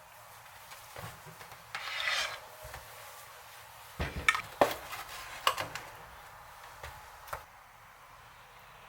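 Kitchen prep on a wooden cutting board: a scrape about two seconds in, then several sharp knocks and taps of a knife or utensil against the board.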